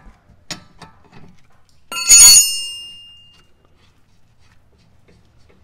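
A steel wrench clanging once about two seconds in, ringing like a bell and dying away over about a second, after a few light tool clinks.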